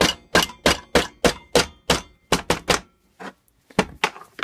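Rapid hammer blows, about three a second with a brief pause partway through, striking the crankcase cover of a 1977 Briggs & Stratton engine. The cover is stuck and being knocked loose.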